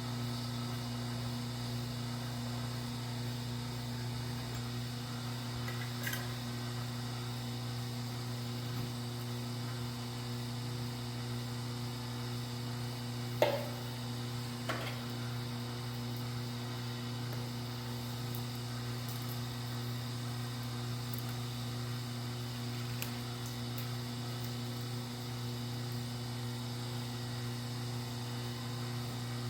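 Steady electrical hum, with two sharp clicks about halfway through, the first louder.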